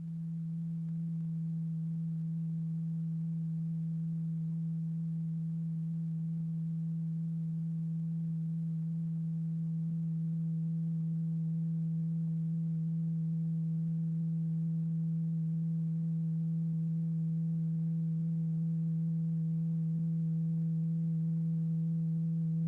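Steady low sine tone from the oscillator that drives the vibrating diaphragm in a cymatics experiment, held unchanged with faint higher overtones. It is the continuous wave that sets the lycopodium powder in motion.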